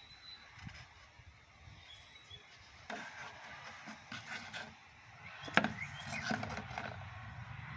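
Hand-forged belt knife being drawn from its leather sheath: leather and steel rubbing and scraping, with one sharp click about five and a half seconds in.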